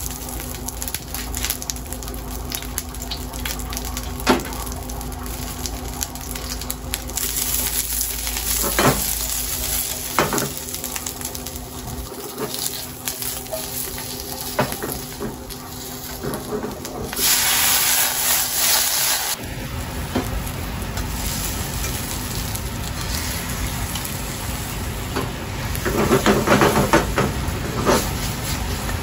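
Manganji peppers sizzling in sesame oil in a hot steel frying pan, with chopsticks clicking against the pan as they are stirred. About two-thirds of the way through, a loud hiss of about two seconds as cooking sake and soy sauce hit the hot pan. Near the end, a louder burst of sizzling and stirring as beaten egg goes in and is mixed.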